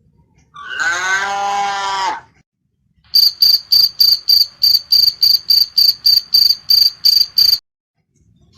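A cow moos once, then a cricket chirps in a steady rhythm of short high chirps, about four a second, for several seconds before stopping suddenly.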